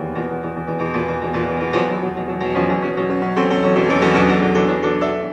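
Intro music of sustained keyboard chords, getting louder through the middle and easing off near the end.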